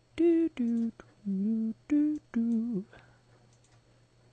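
A man humming a short five-note tune to himself; the notes are held and separate, and the tune ends a little before three seconds in.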